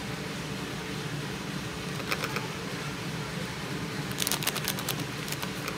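Plastic spice packet crinkling in short bursts as powdered masala is shaken out of it, twice, over a steady low hum.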